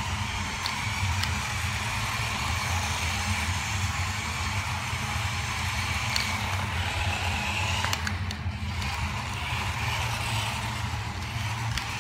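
Small electric motor of a toy-grade RC truck whining as it drives around on a concrete floor, its pitch wavering up and down with the throttle, over a steady low hum.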